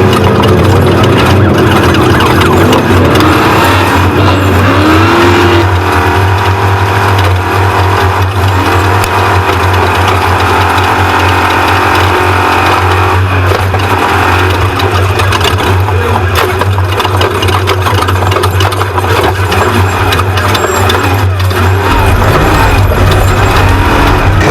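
Off-road race truck's engine running hard at racing speed, loud and continuous, with the revs briefly rising and falling.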